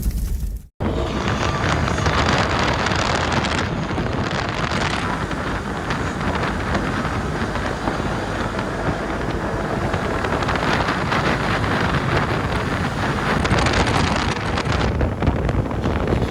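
Heavy wind buffeting the microphone while riding an ATV, with the vehicle running underneath. The sound cuts out briefly less than a second in.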